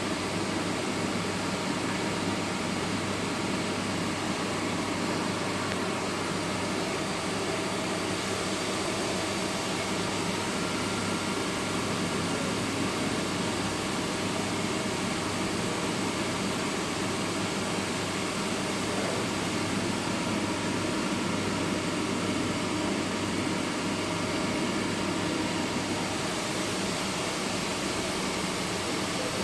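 Steady mechanical running noise, an even hiss with a faint hum of steady tones, unchanging throughout.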